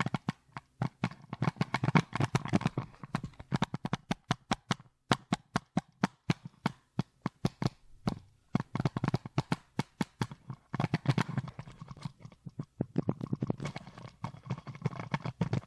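Fingertips tapping and sticking on a plastic bottle, heard from a microphone inside the bottle, which gives the taps a hollow, booming ring. Quick runs of taps come in clusters, with slower, evenly spaced clicks around the middle.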